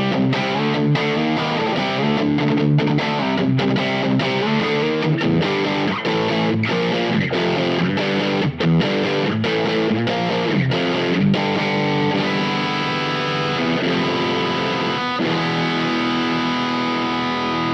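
Electric guitar played through an LPD Pedals Sixty8 drive pedal with the gain cranked, giving a distorted rock sound: quick, rhythmic picked chords and riffs, changing to longer held, ringing chords over the last few seconds.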